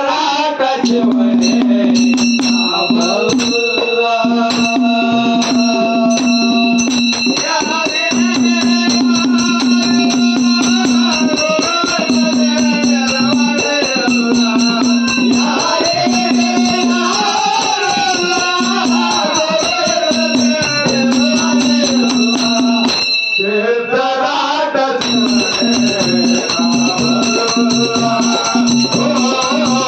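A male voice sings a devotional folk song (dollina pada) over loud, dense percussion from a roped barrel drum beaten with stick and hand, a large dollu drum, and jingling, rattle-like metal percussion. The music breaks off briefly about 23 seconds in, then carries on.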